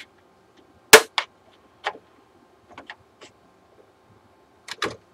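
Plastic snap-fit clips on a Samsung SyncMaster 226BW monitor's back cover popping loose as the cover is pried open with a screwdriver. The result is a string of sharp clicks and pops, the loudest about a second in and another cluster near the end.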